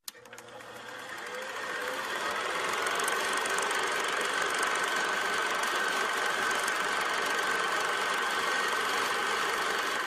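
Film projector running, its mechanism clattering steadily under a whirring hum with a thin high whine. It fades in over the first couple of seconds.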